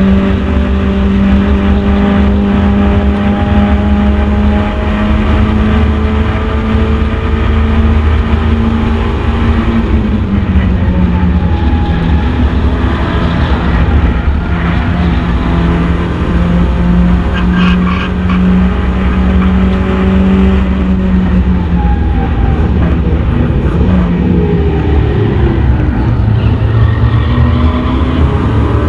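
Mazda MX-5 race car's four-cylinder engine running hard under racing load, heard from inside the open cockpit. Its note dips and climbs again several times as the driver lifts and changes gear.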